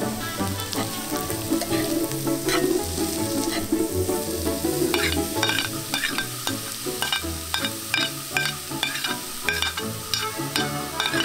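Chopped onion and grated carrot sizzling in a cast-iron skillet while a metal spoon stirs and scrapes. From about halfway through, the spoon clicks and scrapes in quick strokes, two or three a second.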